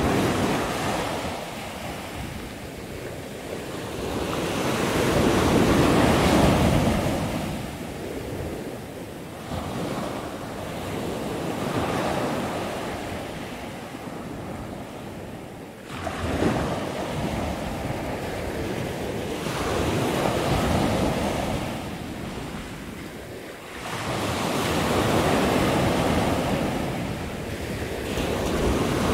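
Pacific surf breaking on a sandy beach below a bluff, a steady rush that swells and fades every several seconds, mixed with wind buffeting the microphone.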